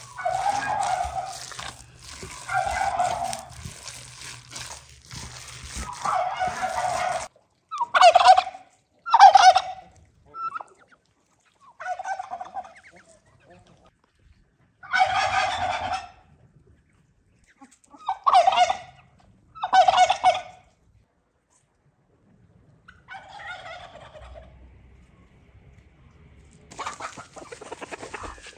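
Domestic tom turkey gobbling again and again, each gobble a loud, rapid warble lasting about a second, with gaps of a few seconds between calls.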